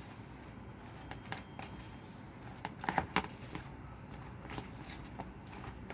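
Chopsticks stirring a moist mix of grated sweet potato in a bowl, with scattered clicks of the sticks against the bowl and a quick cluster of clicks about three seconds in.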